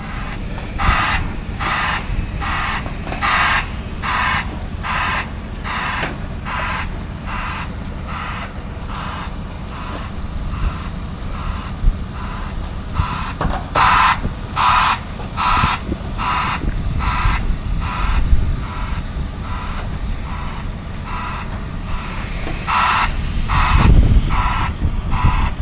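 Tracked drilling rig's backup alarm beeping, about one beep every three-quarters of a second with two short pauses, over the steady low run of its diesel engine as it moves off the trailer. The engine swells near the end.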